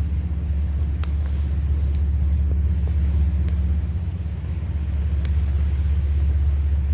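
Steady low rumble of waves breaking on the shore, with a few sharp crackles and pops from a burning wood campfire, the loudest about a second in.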